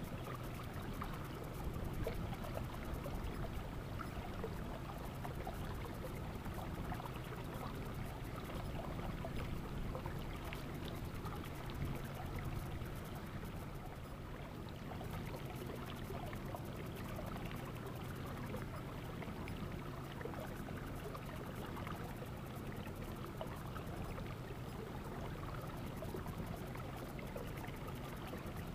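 Water sloshing and splashing against the hull of a slow-moving bass boat, over a steady low rumble.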